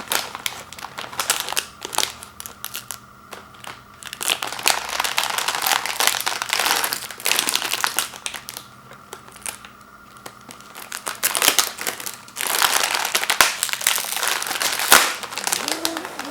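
Plastic wrapper of an Oreo cookie package crinkling as it is handled and opened, in irregular bursts of crackling with quieter pauses between, heaviest in the middle and near the end.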